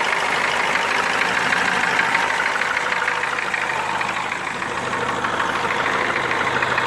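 Car engine running steadily with a rapid metallic knock from a piston pin (wrist pin).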